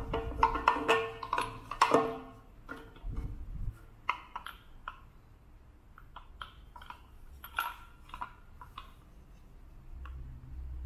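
Small glass bottle-shaped shakers with metal caps knocking and clinking against a wooden carrier as they are set into it: a quick run of ringing knocks in the first two seconds, then scattered light taps and clicks as the carrier is handled.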